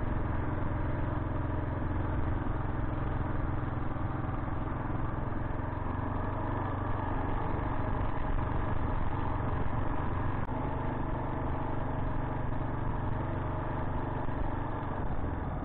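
Kawasaki KLR 685's single-cylinder engine running at a steady, even speed, with one brief click about two-thirds of the way through.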